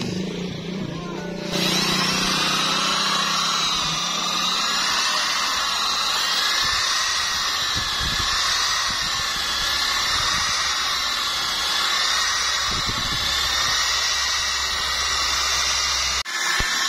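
Makita electric drill spinning a wool buffing pad against a sanded plastic headlight lens: a steady motor whine whose pitch wavers slightly. It starts about a second and a half in and breaks off briefly near the end.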